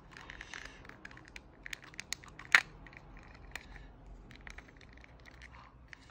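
Small plastic motor housing being handled and pried open by hand: irregular light plastic clicks and scratching, with one sharper snap about two and a half seconds in.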